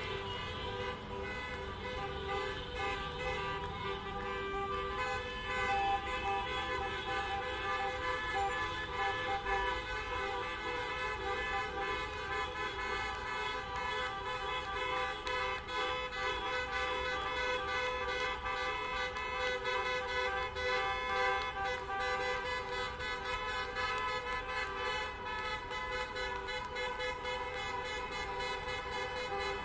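Many car horns honking at once at several pitches, held and overlapping in a continuous din over the low rumble of traffic: a honking protest of cars.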